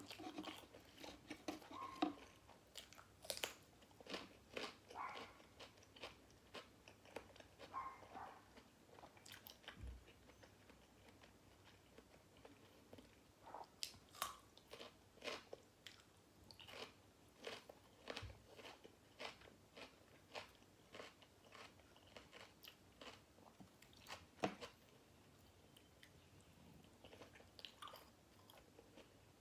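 Close-miked biting and chewing of grilled pork balls and crisp raw vegetables: a steady run of sharp wet crunches, one to three a second, with a short lull a few seconds before the end.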